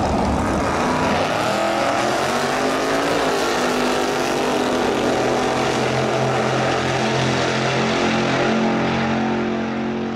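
Car engine revving, its pitch rising and falling in the first few seconds, then running with a steady deep note.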